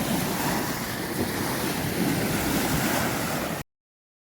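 Sea surf washing onto a sandy beach, with wind buffeting the microphone; the sound cuts off abruptly about three and a half seconds in.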